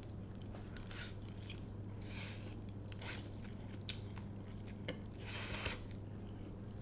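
A person eating Mi Goreng instant fried noodles fast, in close-up mouth sounds: chewing and biting, with several short hissing bursts, the longest about two seconds in and again around five and a half seconds in. A steady low hum runs underneath.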